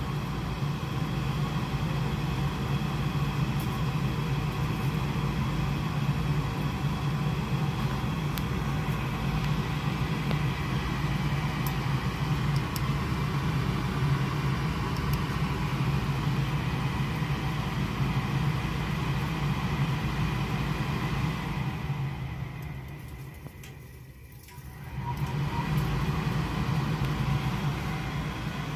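Goodman gas furnace running with a steady low mechanical hum. The hum fades down about three quarters of the way through and comes back up a few seconds later.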